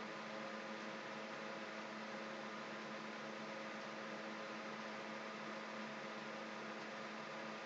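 Steady low electrical hum with a constant hiss over it, unchanging throughout: background noise of the recording.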